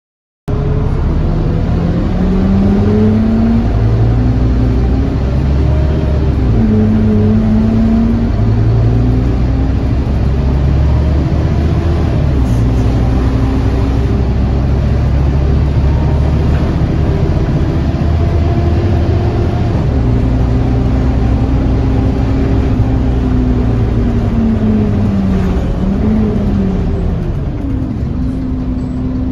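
Scania N230UD OmniCity double-deck bus's five-cylinder 9-litre diesel, heard from inside the passenger saloon, pulling away through its gears. The engine note climbs and drops back at each gear change, then falls away near the end as the bus eases off and slows.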